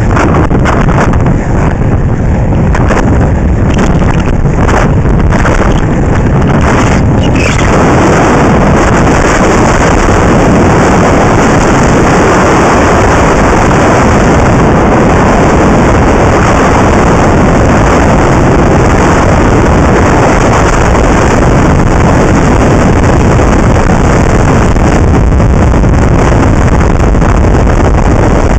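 Loud, steady rush of wind buffeting the microphone at inline-skating speed on asphalt, mixed with the rumble of skate wheels rolling on the track. A few irregular knocks come in the first seven seconds, and then the rush turns denser and steadier.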